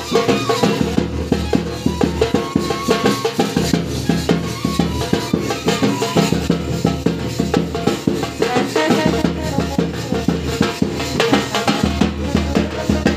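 Loud festive band music driven by fast, steady drumming, played for dancing.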